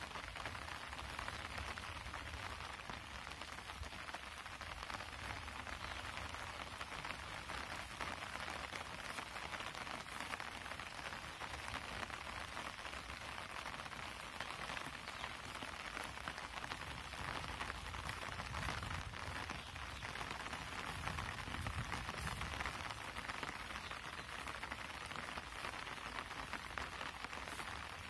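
Steady rain falling on leaves and fields, an even hiss with a low rumble underneath.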